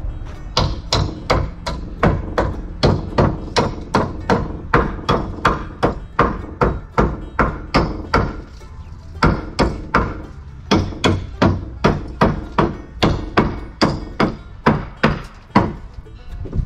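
Hammer driving nails into the wooden frame of a pop-up camper, a steady run of sharp strikes about two to three a second, with a short pause about halfway.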